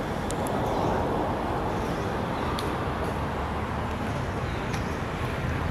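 Steady outdoor background noise: a continuous rumble and hiss, with a few faint high chirps and short clicks over it.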